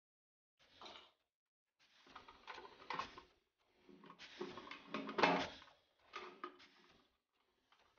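Hard plastic fittings inside a concealed cistern knocking, clicking and scraping as hands work them through the wall opening, in several short bursts with pauses between.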